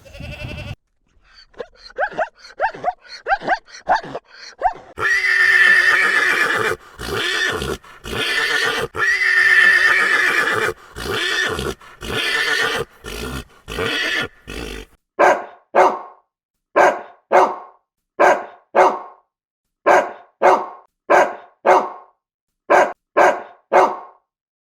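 Animal calls: a run of short cries, then several long calls, then a string of short, separate calls at an even pace, about one and a half a second.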